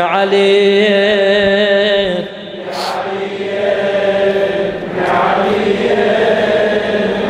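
Congregation of worshippers chanting together in unison in answer to the reciter's call. It opens with a long held, wavering sung note, dips briefly about two seconds in, then many voices carry on together.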